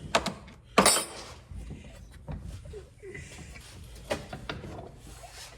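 A few sharp knocks and clatters of hard parts being handled, the loudest about a second in, with smaller knocks a little after two seconds and about four seconds in.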